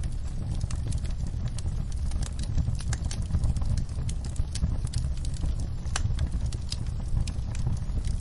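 Wood fire burning in a fireplace: a steady low rumble with frequent light, irregular crackles and pops.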